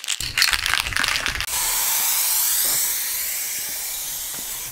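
Aerosol spray-paint can shaken, the rattling of its mixing ball, then from about a second and a half in a steady hiss of paint spraying out of the nozzle.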